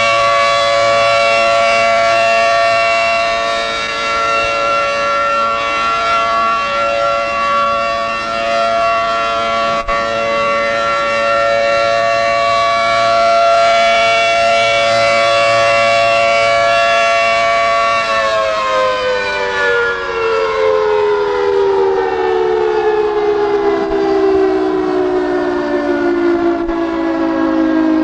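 Federal Signal 500AT outdoor warning siren sounding a steady two-tone chord as a tornado-drill alert, its loudness swelling and dipping slightly. About eighteen seconds in it shuts off and winds down, the chord gliding steadily lower in pitch.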